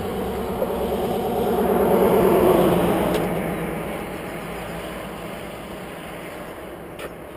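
Longboard wheels rolling on asphalt, a steady rumble that swells to its loudest about two and a half seconds in and then slowly fades, with a couple of small clicks near the end.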